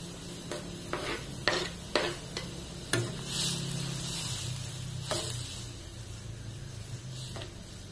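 A metal spoon tapping and scraping on a wooden cutting board and the rim of a metal wok as chopped chilli and garlic are pushed in: a string of sharp clicks over the first three seconds. Then the spoon stirs noodles through simmering curry broth in the wok, with a couple more clinks.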